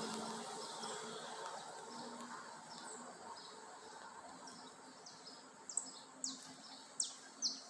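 Noise of a passing vehicle fades away, then a small bird gives a few quick, sharp chirps falling in pitch near the end.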